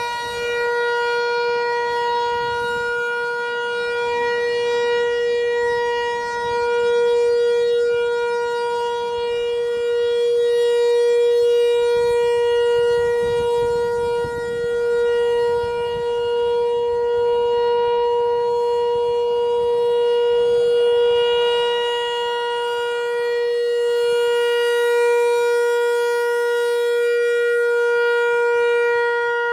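ASC T-128 rotating electromechanical outdoor warning siren sounding its full alert: one steady, unbroken pitch, swelling and fading in loudness as the siren head rotates.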